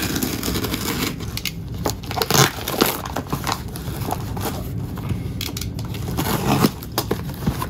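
Cardboard box and paper packaging being pulled open and handled by hand: a steady run of irregular rustling and tearing noises with small knocks.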